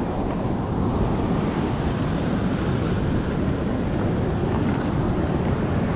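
Wind rumbling on the microphone over the steady wash of ocean surf breaking on a sandy beach.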